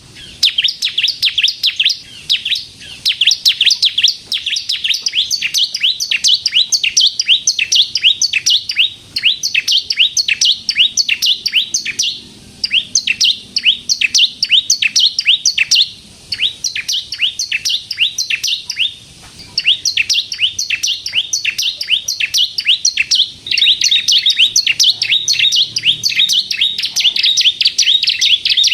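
Ciblek kristal (bar-winged prinia) singing hard in long, fast trills of sharp, high, downward-sweeping chirps, several notes a second, broken by brief pauses.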